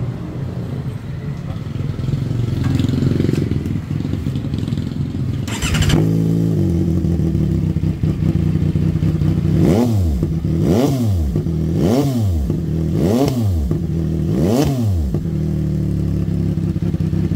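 A CFMOTO 675 SR-R's 675 cc three-cylinder engine idling through an aftermarket slip-on exhaust during a sound check. A sharp crack comes about six seconds in, then the engine is blipped five times, each rev rising and falling about a second apart, before it settles back to idle.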